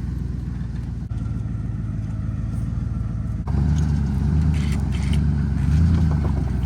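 A motor running with a steady low hum that steps up louder about three and a half seconds in.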